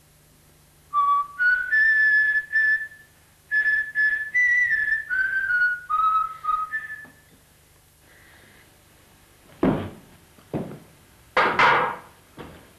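A person whistling a short tune of about a dozen clear, steady notes that climb and then fall in pitch. A couple of seconds later come several sharp knocks, the last one louder and longer.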